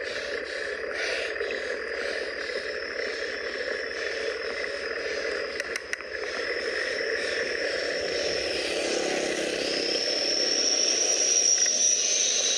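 Steady road and wind noise of a bicycle riding along asphalt, with a thin high whine, growing louder over the last few seconds as a van approaches from the other direction.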